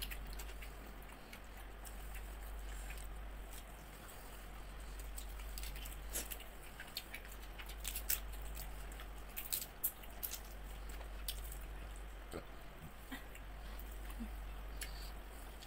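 Eating by hand: scattered sharp clicks and crackles as large curried shrimp are pulled apart and chewed, over a steady low hum.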